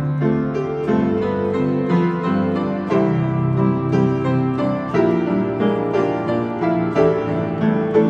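Live piano music: an upright acoustic piano and a Nord Stage keyboard playing an instrumental passage of sustained chords, with new notes struck every half second or so and no singing.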